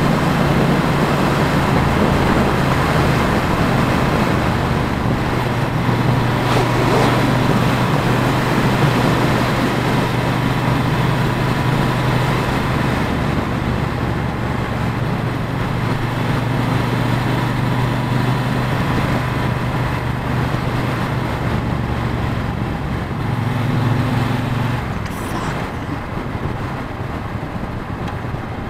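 Motorcycle engine running steadily at highway speed, about 60 mph, with wind rushing over a helmet-mounted microphone. The engine tone shifts briefly a little past the middle.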